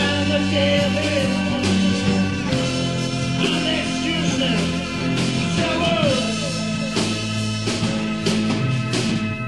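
Background music: a 1970s German psychedelic rock song with singing over guitar and a steady beat.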